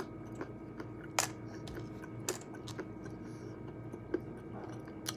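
Scattered small clicks and crunches of nuts being shelled by hand and chewed, with about four sharper cracks standing out over a faint steady hum.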